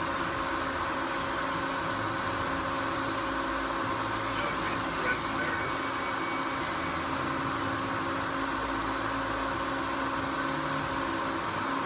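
Hercules Ajax Mazak 18 x 60 gap-bed lathe running steadily, a constant gear whine over a hum, with one short knock about five seconds in.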